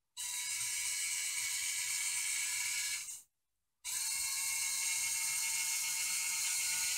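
Two N20 micro gearmotors driving a small robot, a steady whine with gear buzz. It runs for about three seconds, stops for about half a second, then starts again.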